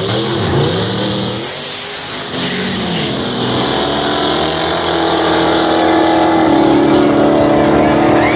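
Two drag-racing cars, a Chevrolet Malibu and a Mustang, launching from the line and accelerating away hard. The engine note climbs, drops back and climbs again as they shift. A hiss of noise comes with the launch, then steadier engine tones carry on as the cars pull down the road.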